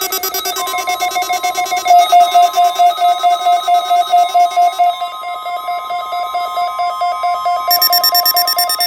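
NOAA Weather Radio warning alarm: one steady unbroken tone, layered with a stack of rapidly pulsing, trilling electronic tones like a telephone ringer. The pulsing pattern changes every few seconds. It sounds loud.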